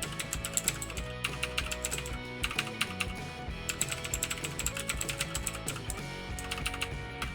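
Fast typing on a budget gaming keyboard: runs of rapid key clicks in bursts with short pauses between them, over background music.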